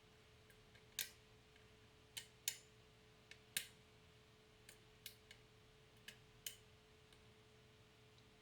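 Faint, irregular clicks from a lock pick working the pins of LockChuck's "Clicky" challenge lock, about ten in the first seven seconds, over a faint steady hum.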